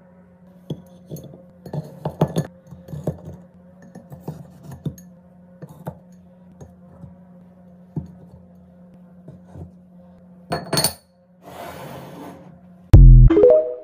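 Glass apothecary jar handled: the lid lifted off and set back on, with light knocks and clinks of glass as items are put into the jar. Near the end, a loud low thump with short falling tones, the TikTok end-card sound.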